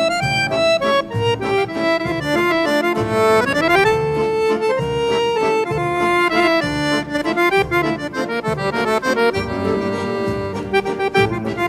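Instrumental background music in the local traditional song style, led by accordion, playing a stepwise melody over a regular bass beat.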